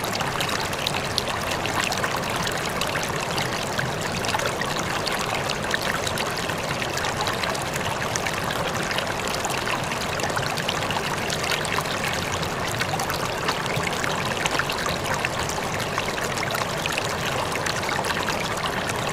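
River water flowing and splashing over rocks, a steady rushing babble with many small splashes and trickles.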